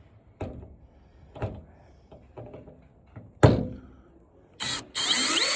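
A few knocks and clunks of handling, the loudest about three and a half seconds in. Near the end a cordless screw gun whirs up briefly, its whine rising in pitch and then holding steady.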